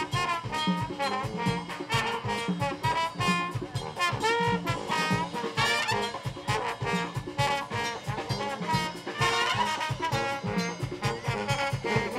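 Live brass band playing a lively jazz tune: trombones, sousaphone and tenor saxophone over a steady beat.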